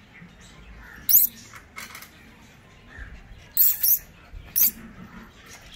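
A puppy's metal chain leash clinking in several short, bright jingles as the puppy moves, the loudest pair a little past halfway.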